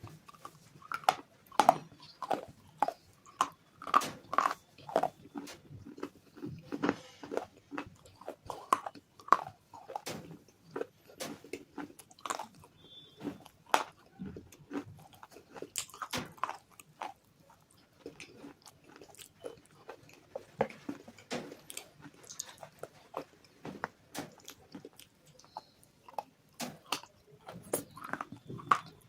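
Close-up biting and chewing of crunchy clay bars: many sharp, irregular crunches and snaps, with a short lull past the middle.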